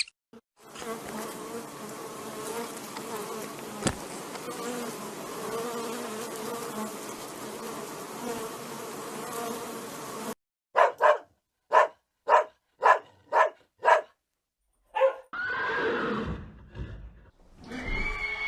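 Bees buzzing steadily for about ten seconds, then cut off abruptly. A quick run of about eight short, loud animal calls follows, then a longer call that wavers and falls in pitch.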